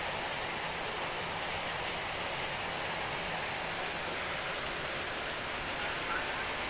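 Steady, even background hiss with no clear source, with a few faint short chirps about six seconds in.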